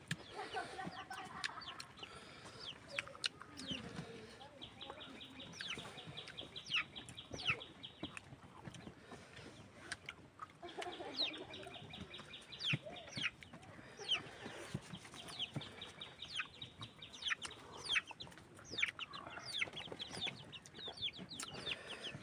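Chickens clucking, with many short sharp calls and stretches of fast repeated clucks.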